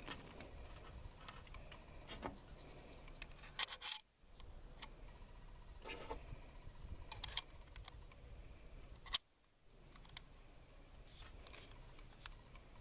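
Handling noise from an M1 Garand rifle: small metallic scrapes and rubbing with a few sharp clicks, the loudest about four seconds and about nine seconds in.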